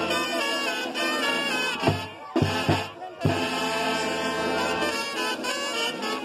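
Brass band playing, trumpets and trombones over sustained low bass notes, with brief pauses about two and three seconds in.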